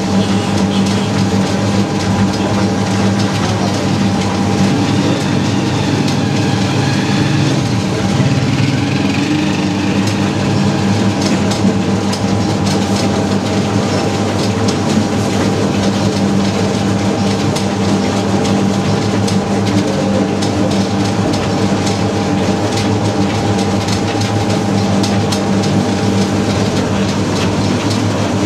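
Motorized naswar (snuff) grinding machine running steadily: a constant motor hum under a continuous rattling clatter as the pestle works the tobacco mix in its tub.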